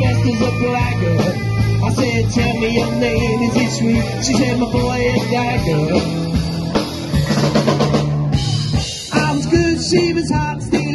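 Live indie-rock band playing, with a drum kit and guitars.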